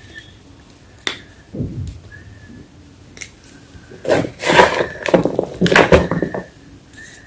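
Reformed gym chalk being crushed: a sharp crack about a second in, then dense crunching and crackling from about four seconds in for two to three seconds.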